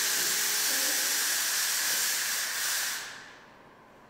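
Fog machine blowing out haze with a steady hiss that dies away about three seconds in.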